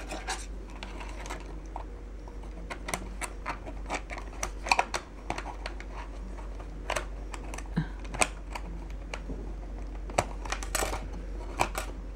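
Irregular small plastic clicks and taps as the hard-drive bay cover is fitted back onto a ThinkPad X61 laptop's case, with a louder clatter a little under five seconds in and another about eleven seconds in.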